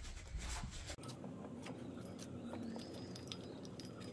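Faint clinks and light taps of metal electric-motor parts being handled as a golf cart motor is put back together, with scattered small clicks.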